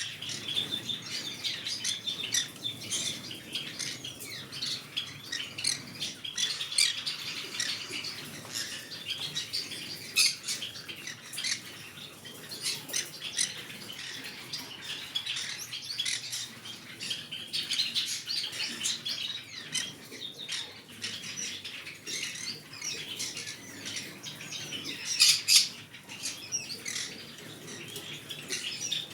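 Green-cheeked conure chirping in many short, quick calls, with a louder burst of calls near the end.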